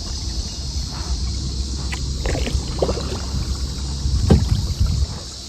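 A kayak being paddled: several paddle strokes splash in the water over a low rumble that stops shortly before the end.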